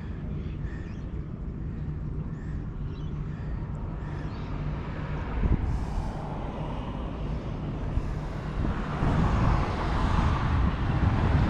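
Road traffic: a low, steady engine hum with passing-vehicle noise that grows louder about nine seconds in.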